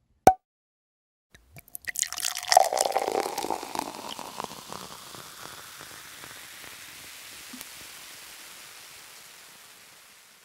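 A single sharp click, then liquid pouring with many small crackling pops over a hiss. It is loudest about two and a half seconds in and slowly dies away to a soft hiss that fades out.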